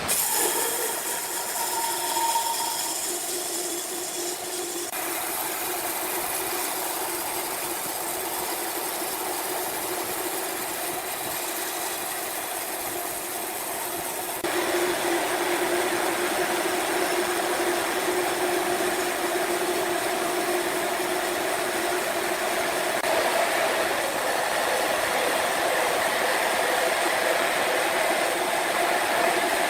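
Sawmill machinery running steadily: a loud mechanical noise with a steady hum. The sound changes abruptly twice, about five and about fifteen seconds in, getting louder at the second change.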